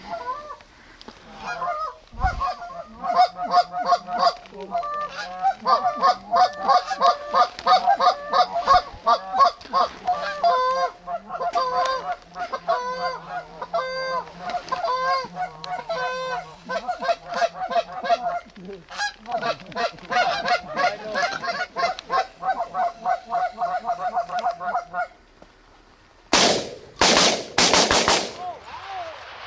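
Geese honking, many overlapping calls without a break for most of the time. The honking stops, and about a second later a rapid volley of three or four shotgun shots rings out.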